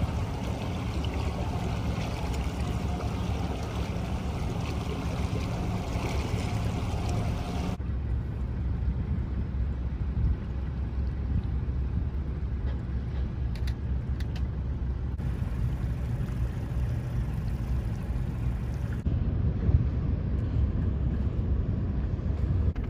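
Steady low rumble of a boat's engine, with water splashing over it for the first several seconds; the splashing stops abruptly and the rumble carries on.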